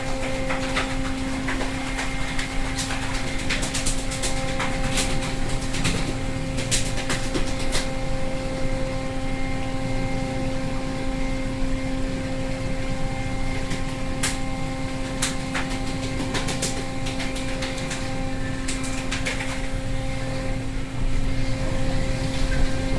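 Machinery aboard a longline fishing boat running steadily: a constant drone and hum with a low rumble, with scattered sharp clicks and knocks throughout.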